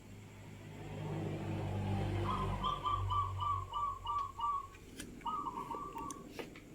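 Zebra dove (perkutut) cooing: a quick string of short, evenly spaced notes, then a shorter second string about five seconds in. A low rumble underlies the first half.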